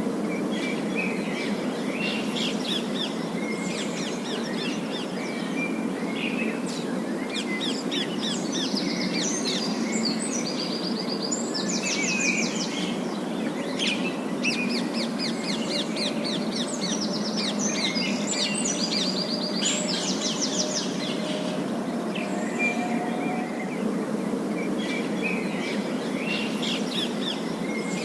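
A flock of parakeets chirping and chattering in quick, overlapping trills, busiest in the middle and thinning out near the end, over a steady low background hum.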